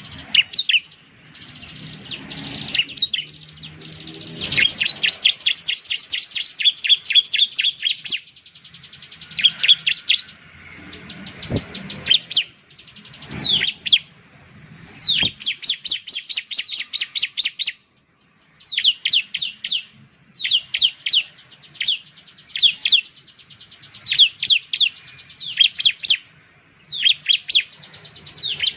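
Bar-winged prinia (ciblek) singing: rapid series of sharp, high notes, each a quick downward sweep, in bursts of a second or two with short pauses between. The sound cuts out briefly about two-thirds of the way through.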